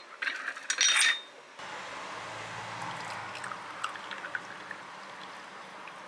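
Glassware clinking against the cabinet shelf as a glass is taken out, loudest about a second in. Then a steady trickling hiss of tea pouring from a metal teapot spout into a tulip-shaped Turkish tea glass, with a few faint ticks.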